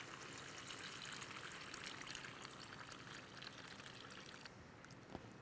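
Water poured in a steady stream from a terracotta jug into a pressure cooker of mutton and masala, splashing and trickling faintly, stopping abruptly shortly before the end.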